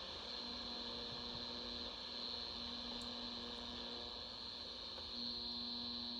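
Portable AM radio's speaker giving out steady hiss and hum with no station coming in, faint steady tones fading in and out, under poor indoor reception near other electronics.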